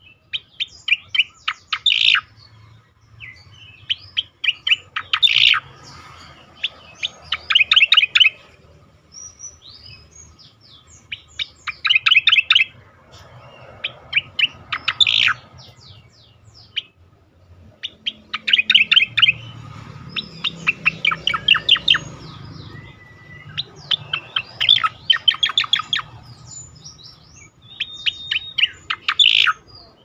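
Striated grassbird (cica koreng) singing: repeated bursts of rapid, sharp notes every two to four seconds, with short whistles and gliding notes between them.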